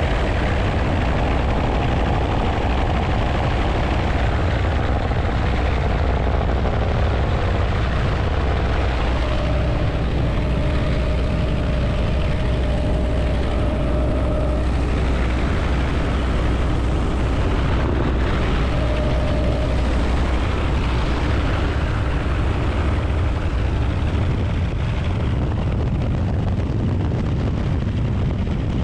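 Helicopter in steady flight heard from inside the cabin with the doors open: the constant low beat of the rotor and engine under a rush of wind through the open doorway.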